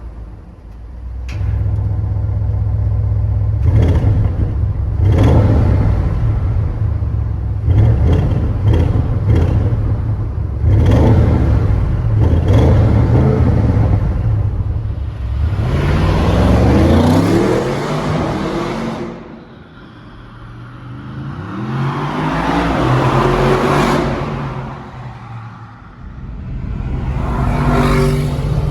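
Audi RS6 C8's 4.0-litre twin-turbo V8 through its RS sports exhaust, heard onboard. A deep rumble at low revs is broken by many sharp exhaust crackles, then the engine climbs steadily in pitch under acceleration about three times, easing off in between.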